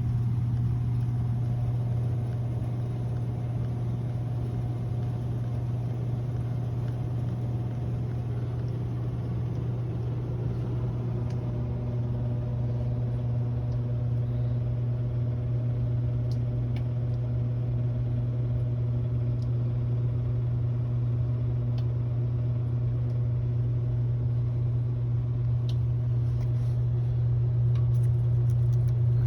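HVAC unit running with a loud, steady low hum, with fainter steady tones above it.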